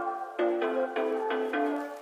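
Background music: a melody of short pitched notes following one another quickly.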